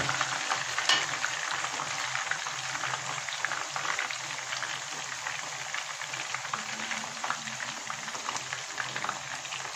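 Hot oil sizzling and crackling steadily as small chicken, capsicum and onion skewers shallow-fry in a pan.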